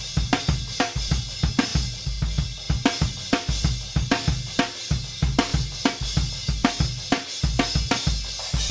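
Playback of a multitrack acoustic drum kit recording: kick drum, snare, hi-hat and cymbals playing a steady beat, with a constant cymbal wash over the hits.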